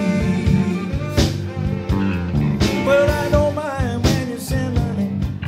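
Live blues-rock band playing an instrumental stretch: electric guitars, saxophone and a drum kit, with a strong beat about every second and a half.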